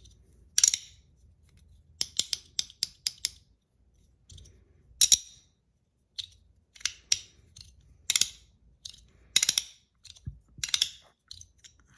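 PEI and aluminum magnetic fidget slider being slid and snapped back and forth by hand: sharp clacks at irregular intervals, some in quick runs of two or three, each with a short bright ring.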